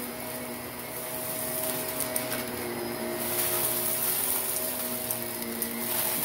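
Shark Navigator upright vacuum running over a carpet rug: a steady motor hum under rushing suction air, with scattered small crackles as crunchy fine dirt and grit are sucked up. The airy hiss grows brighter about halfway through.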